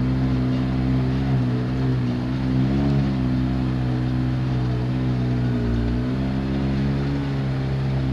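Quad bike (ATV) engine running steadily under way on a rough dirt track, its pitch rising and dipping slightly a few times as the throttle changes.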